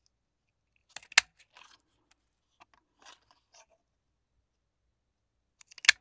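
A small handheld circle punch snapping through kraft file-folder card twice, one sharp click about a second in and another near the end, with light paper rustling and handling ticks between.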